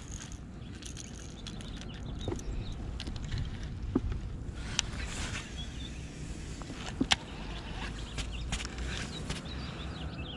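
Low wind rumble on the microphone, with a few scattered sharp clicks and knocks from fishing tackle being handled and a cast being made on a rocky bank.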